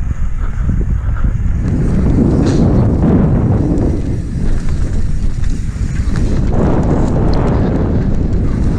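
Wind buffeting the microphone of a camera riding along on a mountain bike at downhill speed, mixed with the tyres rumbling over a rough dirt trail and a few light rattling clicks from the bike in the later seconds.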